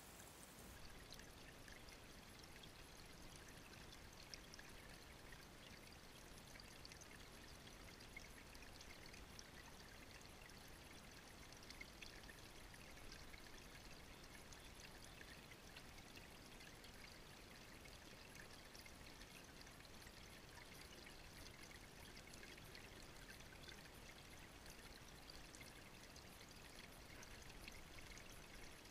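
Stream water running through a gold sluice box: a faint, steady trickling and burbling.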